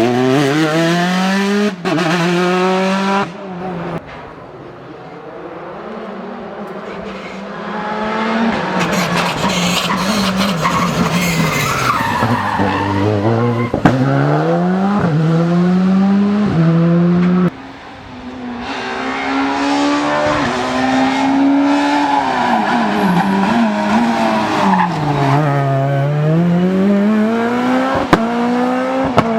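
Rally cars passing at racing speed, engines revving hard and climbing and falling in pitch through gear changes as they brake and accelerate. The sound drops abruptly twice and picks up again as a new pass begins.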